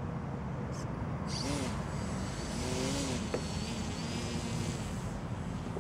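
Wind rumbling on the microphone, with a few brief faint pitched calls about one and a half and three seconds in.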